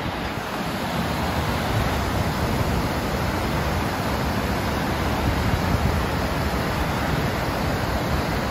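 Steady rush of water from an overflowing dam spillway and the white water churning through the river below it, with wind buffeting the microphone.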